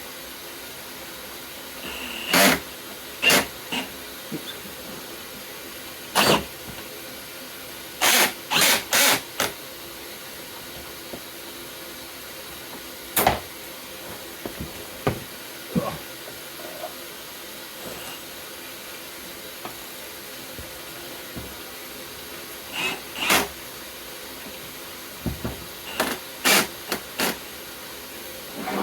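Repeated short, sharp hissing bursts, irregularly spaced, over a steady background hiss.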